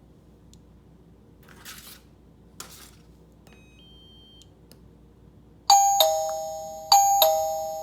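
Doorbell chime unit ringing a two-note ding-dong, higher note then lower, played twice about a second apart, each note ringing on and fading. The newly connected chime is sounding and working.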